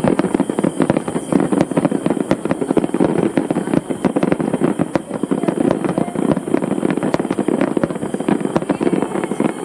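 Aerial fireworks bursting overhead: a dense, rapid barrage of sharp cracks and pops with no let-up.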